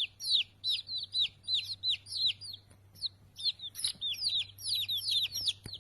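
Many small birds chirping: rapid, overlapping high chirps, each a quick downward-sweeping note, several a second, over a faint low hum.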